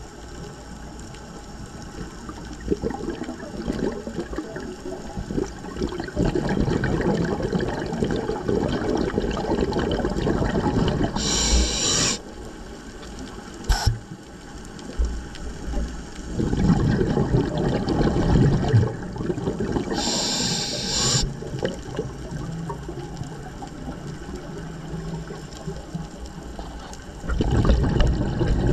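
Scuba diver breathing through a regulator underwater: long stretches of bubbling exhalation, broken twice by a short hiss of inhalation through the regulator. A single sharp click near the middle.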